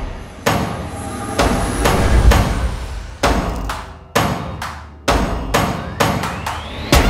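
Soundtrack music in a sparse break: heavy percussive hits about once a second, each dying away, with a rising sweep building near the end.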